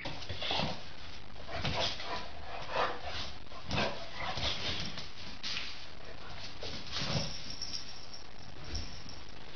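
A dog barking and yipping in short sounds, repeated about once a second and most frequent in the first half, over a steady background noise.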